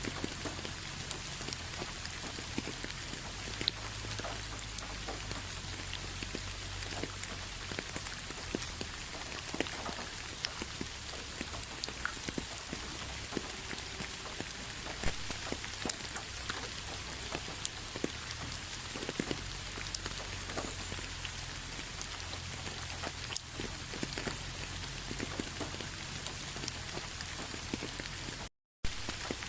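Steady rain falling, a continuous hiss with many individual drops tapping on a surface. It cuts out for a moment near the end.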